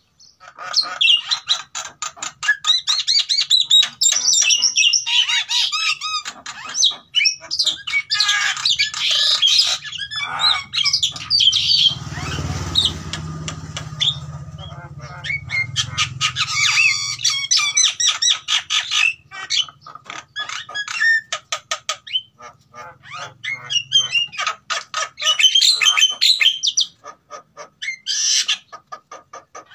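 A pair of caged Javan mynas calling loudly: harsh squawks, fast chattering clicks and whistled notes in quick runs, with a few short pauses. A low hum swells in the background through the middle stretch.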